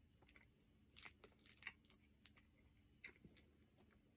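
Near silence: a quiet room with a few faint, irregular clicks and crinkles.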